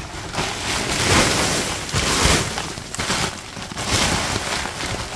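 Plastic sheeting and paper feed bags rustling and crinkling as they are pulled about, in uneven swells.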